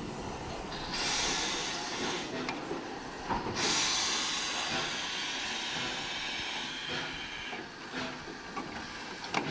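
Steam locomotive No. 563 letting off steam in two hisses: a short one about a second in, then a longer one from about three and a half seconds that slowly fades away. A faint knock comes just before the second hiss.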